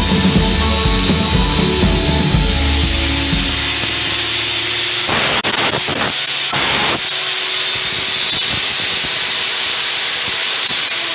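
Table saw running and cutting through a wooden board, a steady high whine, with background music playing over it.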